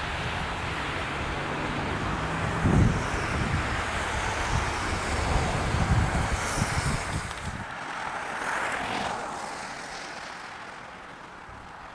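Wind buffeting the microphone over the rush of a passing vehicle. The low rumble drops out about two-thirds of the way in, and the rush then fades away.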